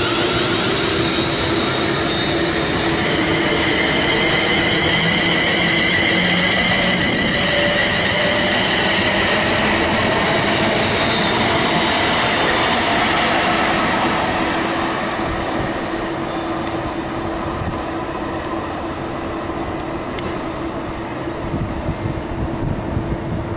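Class 350 electric multiple unit running past the platform and away: a steady rumble of wheels on rail with high whining tones over it, fading after about 14 seconds.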